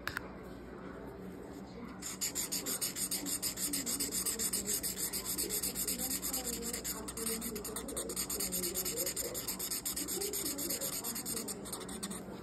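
Felt-tip marker scratching across paper in rapid back-and-forth colouring strokes, starting about two seconds in.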